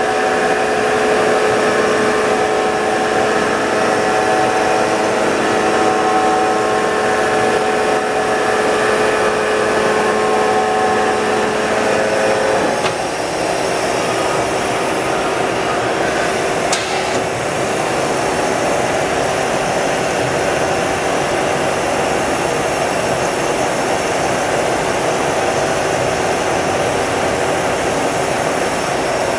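Nakamura Tome SC-250MSC CNC turning center running under power: a steady machine whine of several tones over a hiss. The tones change suddenly about 13 seconds in, and there is a sharp click a few seconds later.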